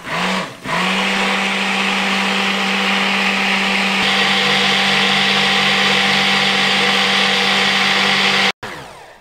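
Handheld immersion blender running in a stainless steel saucepan of melted lamb fat and caustic soda solution, emulsifying the raw lye-soap batter toward trace. It gives one brief pulse at the start, then runs steadily with an even motor hum and hiss, and cuts off suddenly near the end.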